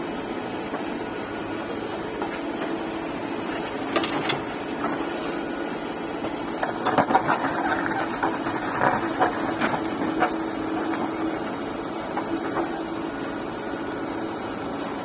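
Heavy diesel engine of a backhoe loader running steadily, with a cluster of knocks and clatter about halfway through as it works.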